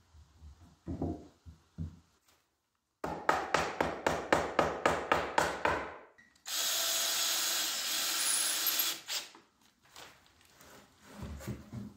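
A power tool runs steadily for about two and a half seconds and then stops. Before it comes a run of even, scraping strokes, about four a second.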